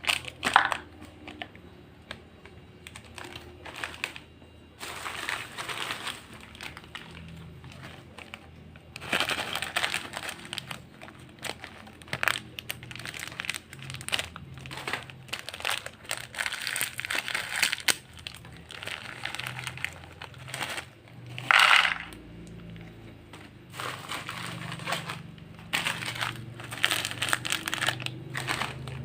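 Plastic snack packets crinkling as they are handled, in repeated bursts with many small clicks and taps in between.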